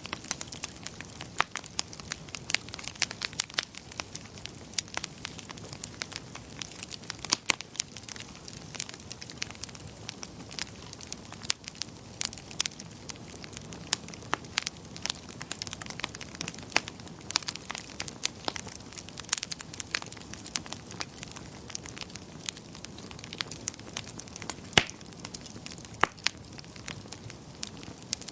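Wood fire crackling in a fireplace: many irregular sharp pops and snaps over a steady low hiss.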